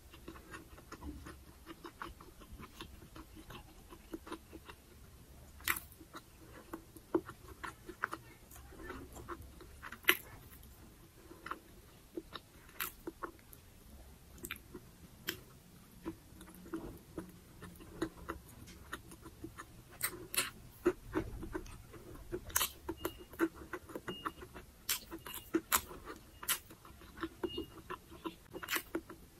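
Close-miked chewing of soft food: wet mouth sounds with frequent sharp lip smacks and tongue clicks, irregularly spaced. In the last several seconds a faint short high beep repeats about every 0.7 s under the chewing.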